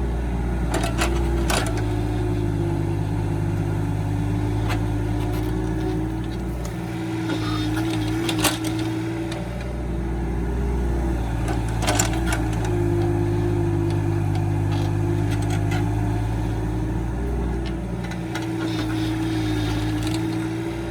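Kubota excavator's diesel engine running steadily, with a higher whine that wavers in pitch as it works. A few sharp metal knocks come through, the loudest about eight and a half and twelve seconds in.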